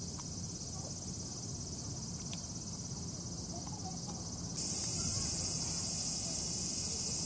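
Steady high-pitched drone of a summer cicada chorus, jumping suddenly louder about four and a half seconds in.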